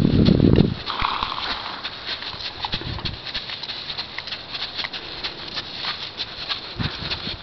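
American Quarter Horse gelding walking on a dirt arena under a rider, its hoof footfalls making a steady irregular patter. A loud low rush of noise fills the first half-second.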